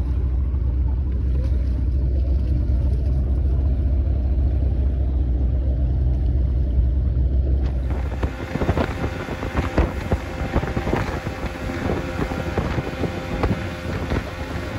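Low, steady rumble of a small boat under way on the water with wind buffeting the microphone. After about eight seconds it turns rougher, with a scatter of sharp knocks and clatter.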